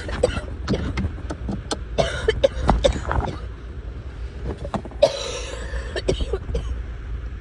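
Congested coughing from a person with a sinus cold: a cluster of short coughs in the first three seconds, then one longer harsh cough or breath about five seconds in, over a steady low hum.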